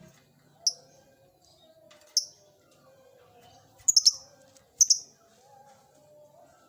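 Lovebird giving short, sharp, high-pitched chirps, one every second or two, with a quick cluster of them about four seconds in.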